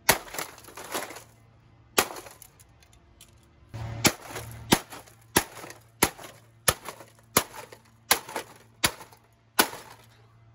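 Golf iron striking the casing of a gutted 2006 Sylvania 15-inch LCD TV, about a dozen sharp hard-plastic whacks. Three come close together at the start, then after a short pause a steady run of about one blow every 0.7 seconds ends shortly before the finish.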